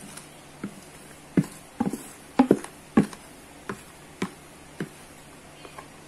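Wooden spoon knocking and tapping against the bowls while beaten egg whites are scraped from one bowl into another: about ten irregular knocks, the loudest in the middle.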